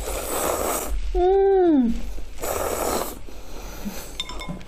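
Thin buckwheat noodles slurped into the mouth twice, each a short hissing suck, with a brief hummed "mm" between them that rises then falls in pitch.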